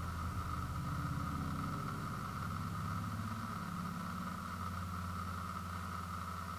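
A steady low mechanical hum, like an engine or motor running, under a constant higher-pitched whine.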